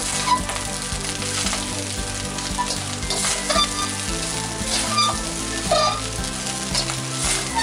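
Fried rice and mixed vegetables sizzling in a hot wok while a metal spatula tosses and stirs them, with repeated sharp scrapes and clinks of the spatula against the wok.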